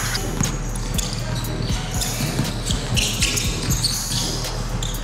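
A basketball bouncing repeatedly on a hardwood gym floor at an uneven pace, with players' voices in the background of a large indoor hall.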